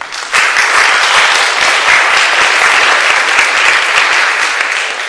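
Audience applauding, many people clapping together, starting sharply just after the start and tailing off near the end.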